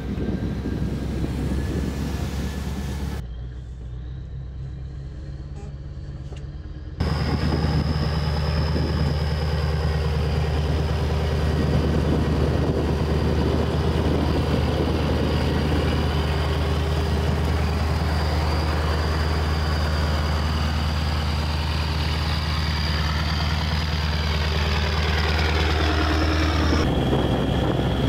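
Heavy eight-wheeled Iskander-M missile launcher truck's diesel engine running with a steady low drone, a thin high whine over most of it. The sound drops abruptly about three seconds in and returns louder about seven seconds in.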